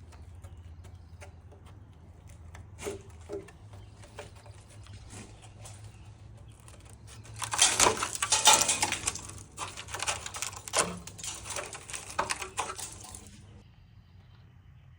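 Junk being cleared out of a car by hand: scattered light knocks and clinks, then from about seven seconds in, some six seconds of dense clattering and rustling of loose items.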